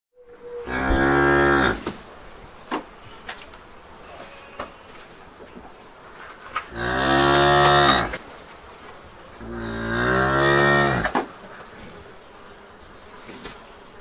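Cattle mooing in a barn: three long, loud moos a few seconds apart. Short knocks and clatter are heard between them over a steady barn background.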